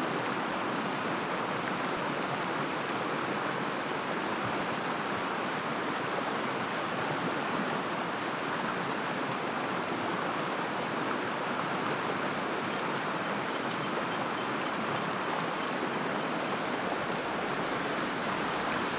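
River water running steadily over a shallow rippled stretch, an even rushing noise, with a faint steady high-pitched tone above it.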